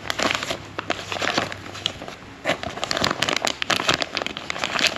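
Plastic blind-box packaging crinkling and crackling as it is handled and opened by hand, the crackles coming thicker in the second half.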